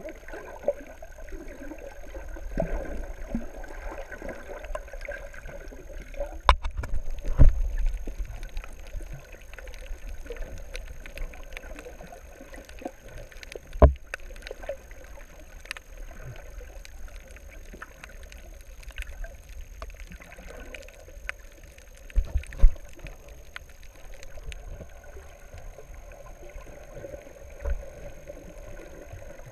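Muffled underwater ambience heard through a camera housing: a steady low rumble of moving water with a faint high whine. Several sharp knocks stand out, the loudest about a quarter of the way in, about halfway, and about three quarters through.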